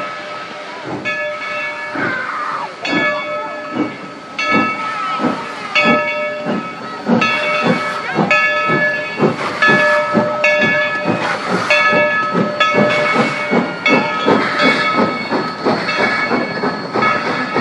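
Coal-fired steam locomotive pulling away from a standstill: exhaust chuffs from the stack come steadily quicker as it gathers speed, over a steady hiss of steam. Through it, the locomotive's bell rings about once a second.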